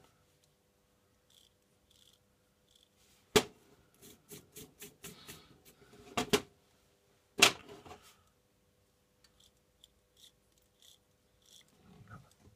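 Handling noise from a small model locomotive chassis being scrubbed with a toothbrush and turned in the hands: a run of short scratching strokes and light clicks, with three sharp knocks standing out, the loudest a little past the middle.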